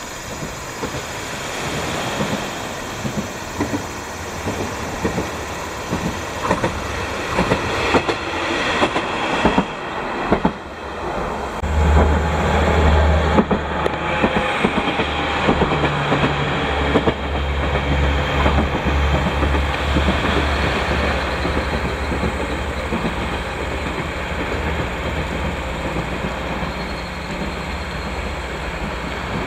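JR KiHa 47 diesel railcar passing close by. First comes a run of sharp wheel clacks over the rail joints, then from about halfway the diesel engine's low rumble as it goes past, easing slightly as it draws away.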